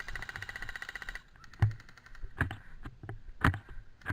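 Airsoft electric rifle firing a rapid full-auto burst, a buzzing rattle lasting about a second, followed by a few separate sharp knocks.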